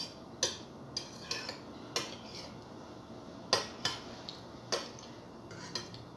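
Metal spoon clinking against a ceramic bowl while eating: about seven sharp, irregularly spaced taps.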